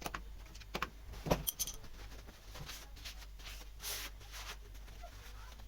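Scattered light clicks, knocks and metallic clinks of clamps and a glued wooden workpiece being handled, with a short ringing clink about one and a half seconds in.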